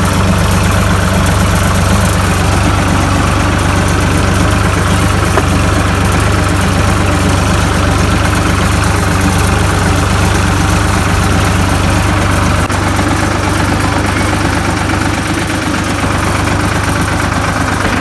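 Ford tractor's diesel engine running steadily, heard from the driver's seat close to the engine.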